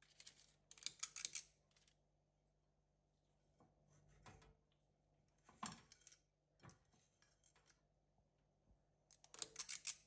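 Metal squeeze-handle cookie scoop scraping cookie dough from a glass bowl, its spring-loaded release lever clicking as each scoop of dough is dropped onto parchment paper. It comes in three short bursts of scraping and clicking, with a few single clicks between.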